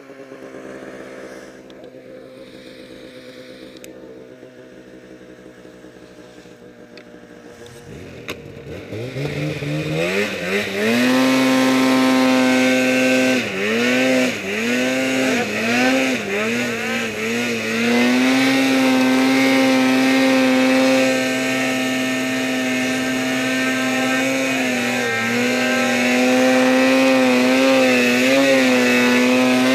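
Snowmobile engine running low and quiet for several seconds, then opened up about eight seconds in, climbing sharply in pitch to run at high revs while the sled climbs through deep powder. The pitch dips and recovers several times as the throttle is worked.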